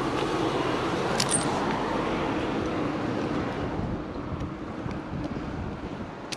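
Wind buffeting the climber's head-mounted camera microphone, a steady rushing noise that eases off after about four seconds, with a single sharp click about a second in.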